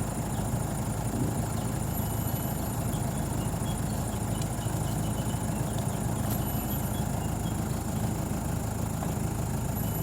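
A motor engine running steadily at idle, a low, even hum with no change in speed.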